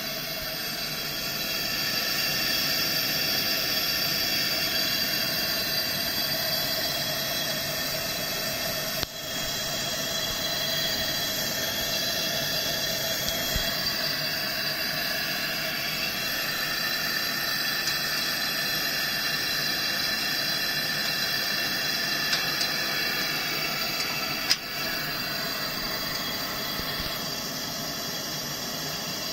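Coleman 413C two-burner camp stove with both burners running: a steady rushing hiss of pressurized burning fuel, with faint whistling tones over it. Two brief clicks, about nine and about twenty-four seconds in.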